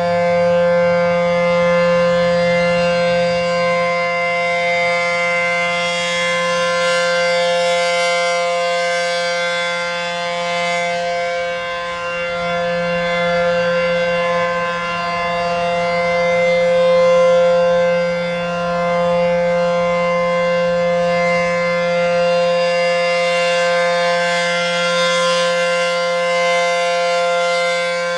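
ACA P-15 Penetrator siren, a 9/12-port dual-tone rotating siren, sounding a steady Full Alert tone. The shrill, piercing sound holds one pitch and swells and fades slowly as the head rotates.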